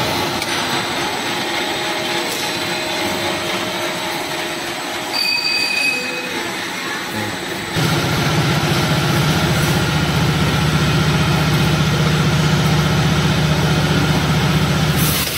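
Factory machinery running: an automatic razor-wire mesh welding line makes a steady mechanical noise, with a brief high whine about five seconds in. About eight seconds in, the sound changes to a louder, steady low hum.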